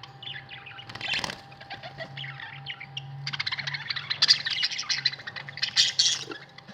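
Budgerigars chattering and warbling in fast, scratchy runs of chirps, loudest about a second in and again from about four to six seconds in. A faint steady hum runs underneath.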